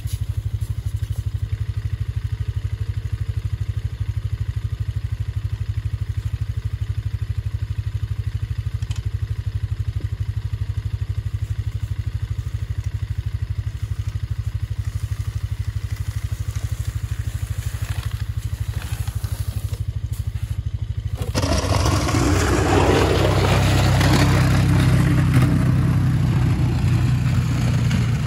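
1997 Polaris Sportsman 500 ATV's single-cylinder four-stroke engine running steadily at low revs. Some twenty seconds in it gets louder and a rough scraping joins it as the Warn plow blade pushes wet, heavy snow.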